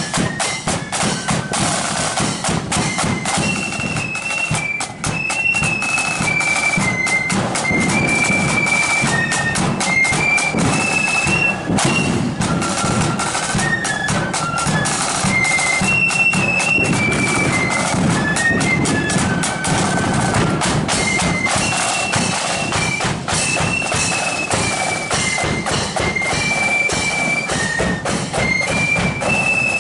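Marching flute band playing: a high flute melody moving in steps over a steady beat of side drums and bass drum.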